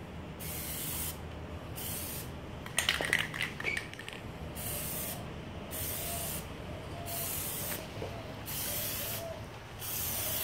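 Aerosol can of Plasti Dip spraying in short sprays, about eight in a row with brief pauses between. A short clatter comes about three seconds in.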